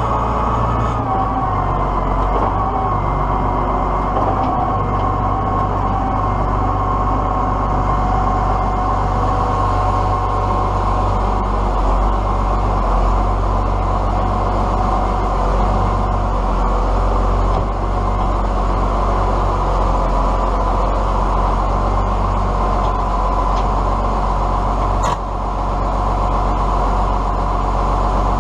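Tractor engine running steadily under load, with a steady mechanical whine over the engine drone.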